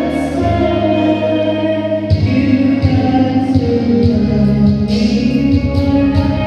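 A woman singing karaoke into a microphone over an amplified backing track, with held bass notes underneath and cymbal hits coming in near the end.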